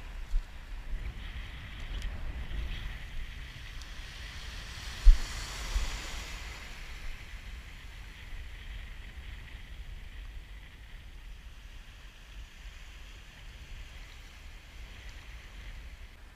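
Small waves washing and lapping around the legs in shallow water at the shoreline, swelling about five seconds in, with wind rumbling on a chest-mounted action camera's microphone and a few sharp low thumps from gusts or bumps.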